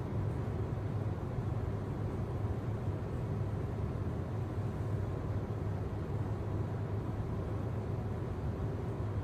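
Steady low hum with a soft hiss over it, unchanging throughout: the constant noise of something running in the room.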